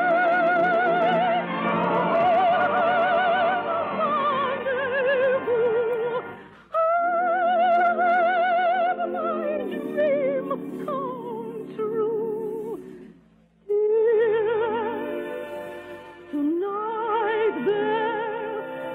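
Soprano singing long held operetta notes with wide vibrato over an orchestra, broken by two short pauses. The sound is thin, with no highs, as on an early-1950s radio recording.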